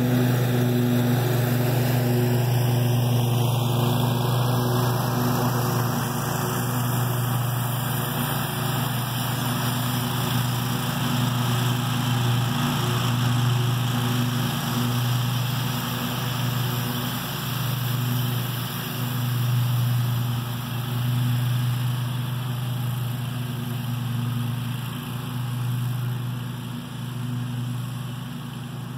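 Scag Tiger Cat II zero-turn mower's engine running steadily while it mows, growing slowly fainter as the mower drives away.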